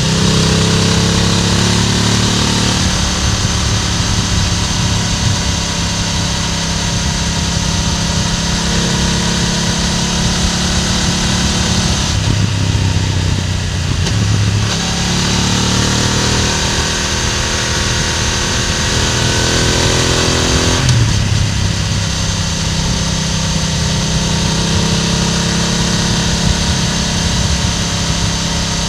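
BMW F900R parallel-twin motorcycle engine heard through its exhaust while riding, running at a steady cruise under a strong wind rush. About twelve seconds in, the throttle eases off for a couple of seconds, then the bike pulls again.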